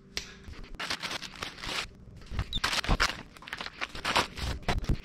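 Fast-forwarded kitchen sound under a time-lapse: a rapid, irregular jumble of crackles and clicks.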